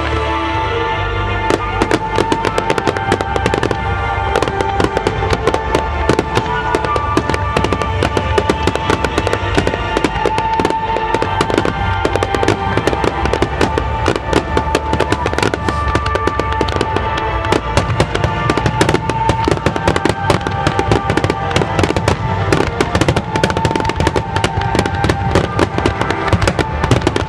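Fireworks going off in a dense, rapid run of bangs and crackles over music, the bursts thickening from about a second and a half in.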